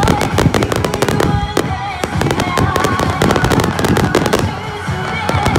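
Aerial fireworks display: a rapid, dense run of bangs and crackling bursts from shells and multi-shot barrages going off one after another.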